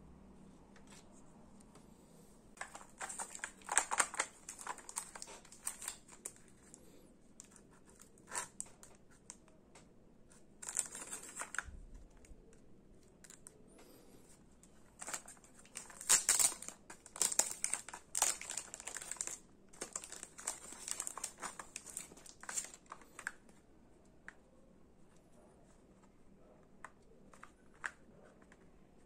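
Packaging being crinkled and torn open by hand, in irregular bursts of crackling with short pauses between them.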